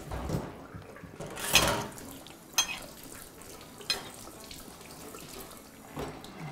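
Cutlery and dishes clinking a few times: a louder scrape or knock about a second and a half in, then three short ringing clinks, over a faint steady rush.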